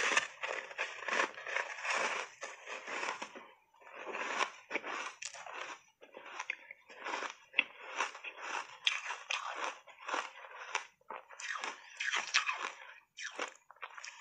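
Close-up crunching of a refrozen ice block coated in matcha powder, bitten and chewed in big mouthfuls: dense runs of sharp crunches with brief pauses between bites.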